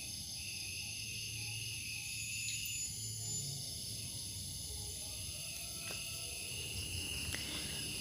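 A steady chorus of crickets and other night insects, several continuous high-pitched trills at different pitches overlapping.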